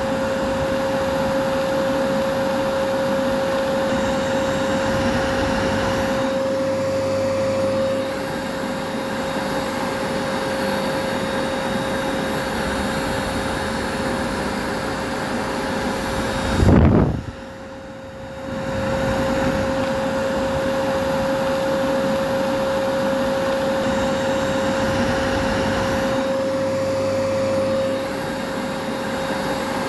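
Vacuum cleaner running steadily: an even rush of air with a constant whine over it. About halfway through comes a brief loud low thump, then a second or so of quieter sound before the steady running comes back.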